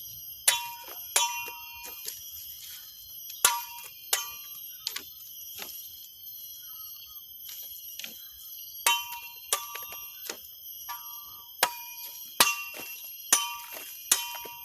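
Golok (machete) blade struck over and over, each hit ringing out metallically. About a dozen irregular strikes, with a gap of a couple of seconds near the middle.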